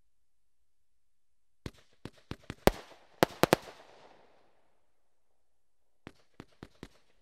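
GR3001 Haantje XL firework cake firing its shots. A rapid run of about nine sharp bangs starts a couple of seconds in and dies away. After a pause, four more bangs come near the end.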